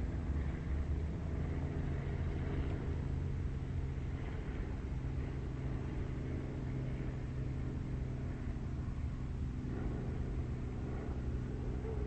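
A steady low mechanical hum and rumble, with a constant drone that holds one pitch.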